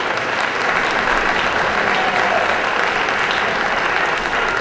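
Audience applauding, a steady run of clapping from many hands.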